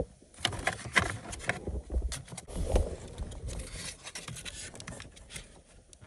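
Plastic door trim panel and window-switch bezel being handled by hand, scraping and rubbing with scattered irregular clicks as it is worked loose from the door.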